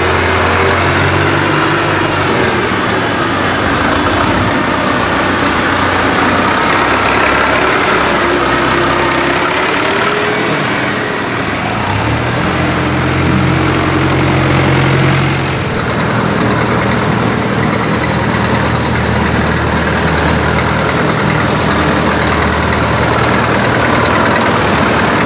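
Diesel farm tractors, vintage and modern, running as they drive past one after another, the engine note changing as each tractor passes, with a short rise in pitch about halfway through.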